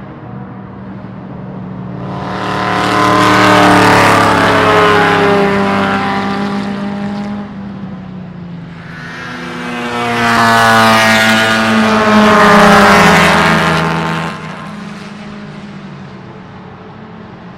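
Two race cars passing one after the other at speed, the first about two seconds in and the second around nine seconds in. Each engine note swells, drops in pitch as the car goes by, and fades away, over a steady distant engine drone.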